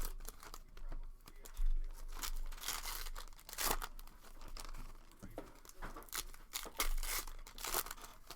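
Wrapping on trading-card packs being crinkled and torn open by hand, in irregular rustles with a few louder rips.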